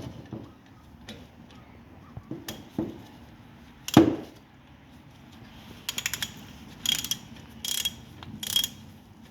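Ratchet wrench clicking in short strokes on a brake caliper bolt, with a few metal knocks; the loudest is a single clank about four seconds in, and the clicking comes in a quick run and then three short bursts about a second apart near the end.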